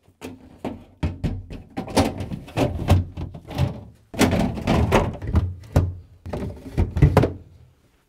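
Plastic fridge freezer drawer and its cover being slid into the compartment and pushed into place: a rapid run of hollow plastic knocks and thunks.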